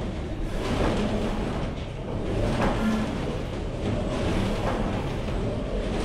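Large bronze church bells, a Grassmayr-cast peal whose biggest bell is tuned to g°, swinging and ringing together, heard from inside the bell tower. Clapper strikes recur about every two seconds over a dense, continuous ring.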